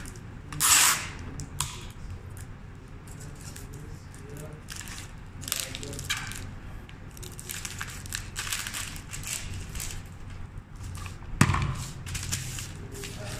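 White wrapping paper rustling and crinkling as it is gathered and folded around a bunch of flower stems, with a louder rip of tape pulled from a tape dispenser just under a second in and a single knock near the end.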